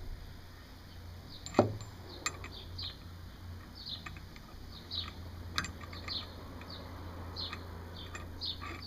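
Birds chirping repeatedly in short high calls, with one loud clunk about a second and a half in and a few lighter clicks, from the trailer hitch parts being handled.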